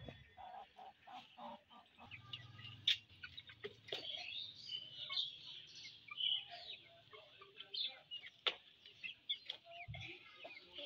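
Chickens clucking softly, mixed with scattered short high chirps and a few sharp clicks.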